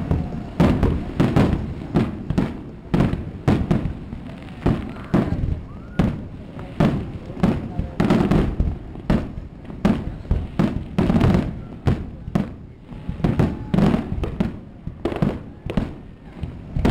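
Aerial fireworks shells bursting in a rapid, continuous barrage, several sharp bangs a second, each with a short rumbling echo.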